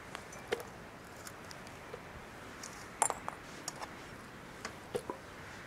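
Pieces of raw chicken stomach dropped into a stainless steel dog bowl, giving a few light metallic taps and clinks, the loudest about three seconds in, over a steady hiss of wind on the microphone.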